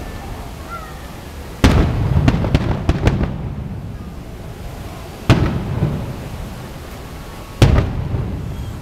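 Aerial firework shells bursting: three loud booms, about a second and a half, five seconds and seven and a half seconds in, each trailing off over a second or two, with a few smaller pops just after the first.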